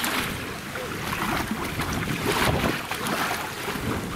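Wind buffeting the microphone, with water lapping against a small boat's hull.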